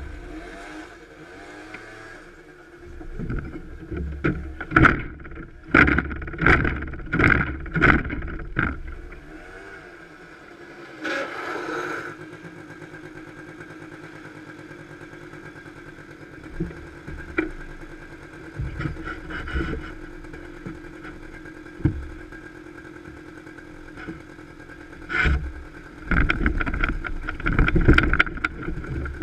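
A small engine running, with rough loud bursts about once a second near the start and again near the end, and a steadier idle-like stretch in the middle.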